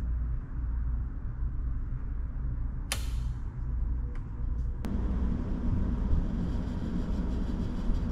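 A Sanyo wall timer switch is turned with a sharp click, and a second click about two seconds later sets the water slide's water running with a steady rush over a low hum.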